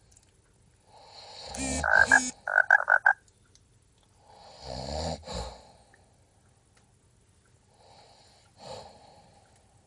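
Unusual snoring: a loud snoring breath about a second in that ends in a quick run of about five short pulses, then a second snore a few seconds later and a fainter one near the end.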